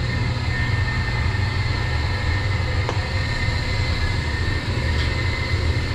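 Steady machinery drone of a commercial boiler room, from the running circulating pumps and boilers: a strong low hum with faint steady higher whines, and a light click about three seconds in.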